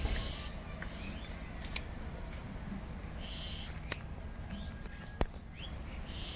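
Fresh yardlong beans snapped into pieces by hand: three crisp, sharp snaps, the loudest about five seconds in. Birds chirp in the background.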